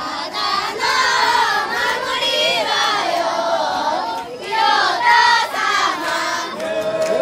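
A group of children singing a traditional Japanese festival song (matsuri-uta) together, many voices at once, ending on a long held note.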